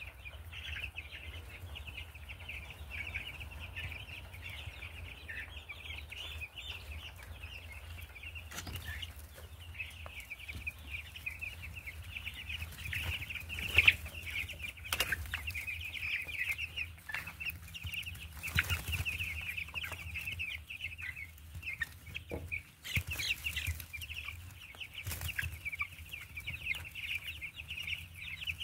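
A flock of 13-day-old Cornish Rock Cross meat chicks peeping and chattering continuously, over a steady low hum. There are occasional brief knocks, the sharpest about fourteen seconds in.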